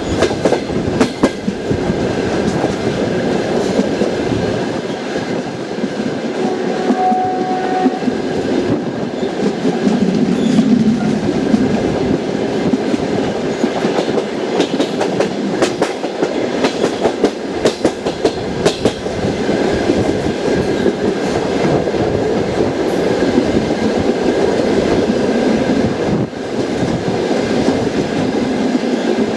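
Passenger train wheels clattering over rail joints as the train runs along the line: a steady rush of running noise broken by repeated clickety-clack knocks.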